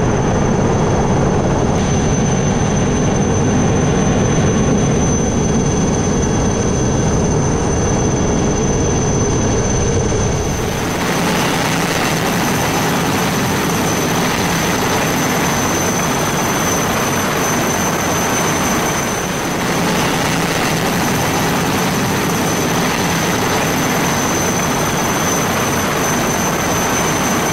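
Steady, loud aircraft engine noise with a thin high whine running through it. About ten seconds in, the bass drops away and the hiss above grows brighter.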